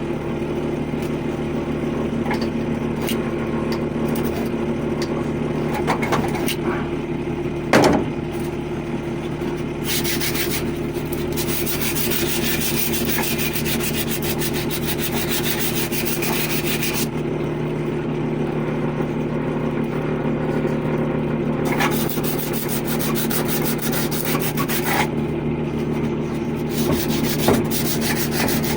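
Copper pipe being sanded clean by hand with an abrasive: long spells of rapid back-and-forth rubbing, strongest in two stretches in the middle and near the end, over a steady low machine hum.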